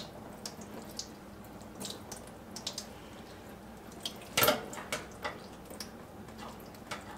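Crushed pineapple being squeezed by hand in a wire mesh strainer over a sink, juice dripping with small wet clicks and ticks. One louder knock comes about four and a half seconds in.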